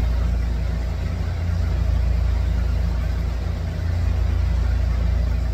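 A steady low mechanical hum of a motor running, unchanging throughout.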